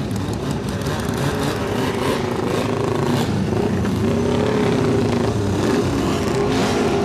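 Motor vehicle engines running and revving at a motorsport event, their pitch wandering up and down.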